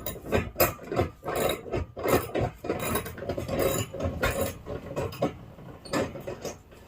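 Ratchet wrench clicking as it works a bolt loose on a bed frame. A fast, irregular run of clicks and scrapes that eases off about five seconds in.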